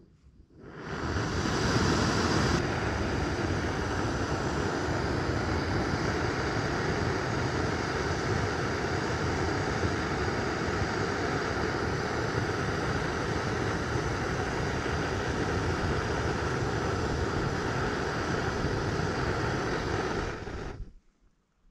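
Portable gas camping stove burner hissing steadily under a pot of water. It lights about a second in and is shut off abruptly near the end.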